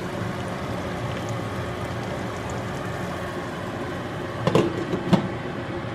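Steady hum of a running kitchen appliance with a faint steady tone, and two short knocks about four and a half and five seconds in.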